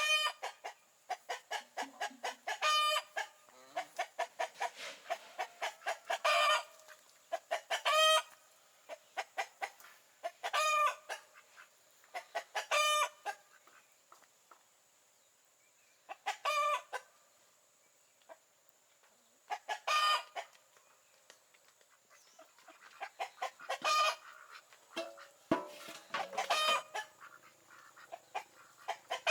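Chickens clucking in quick runs of pulses, broken by short pitched calls every few seconds, with rooster-like crowing among them.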